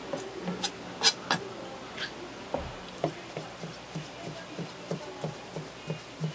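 Kitchen knife chopping a raw sea cucumber on a plastic cutting board: a few sharp clicks in the first two seconds, then steady soft knocks about three a second as the blade cuts through the flesh onto the board.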